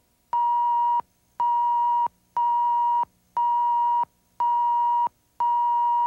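Electronic test tone on a videotape between commercials: a steady high tone cuts off right at the start, then the same tone beeps six times, about once a second, each beep about two-thirds of a second long. This is the lineup tone and beep countdown laid before a commercial on a broadcast tape.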